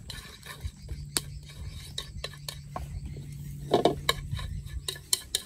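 Chopsticks scraping and tapping against a steel wok as food is stir-fried, with many short clicks throughout. A short louder sound comes a little under four seconds in.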